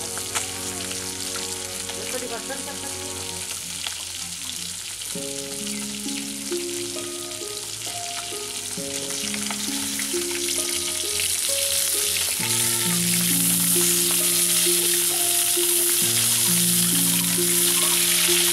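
Turmeric-coated pieces of carp sizzling as they fry in hot oil in a wok, the sizzle growing louder about two-thirds of the way through. A simple background melody plays throughout.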